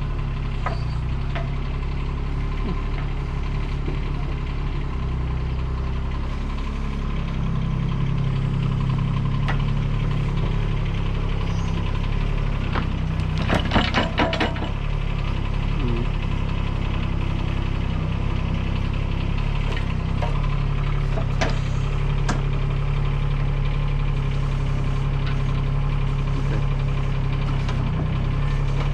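Diesel engine of a Bobcat loader running steadily, picking up in revs about seven seconds in as it works. A brief burst of clattering comes about halfway through.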